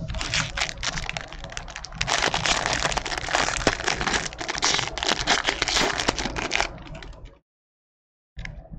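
Foil wrapper of a baseball card pack being torn open and crinkled by hand: a dense crackling full of small clicks that cuts off suddenly about seven seconds in.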